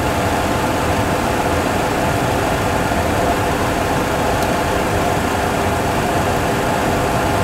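Steady rushing airflow noise with a faint hum in a Boeing 737 Classic flight simulator cockpit, gliding with both engines shut down and the speed brake out.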